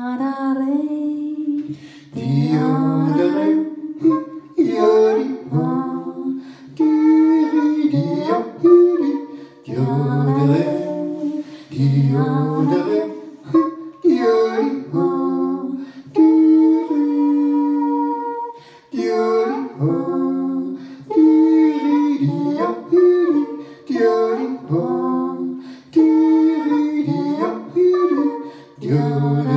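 A woman and a man yodelling together a cappella in two-part harmony. The yodel moves in phrases of about two seconds, with short breaks between them.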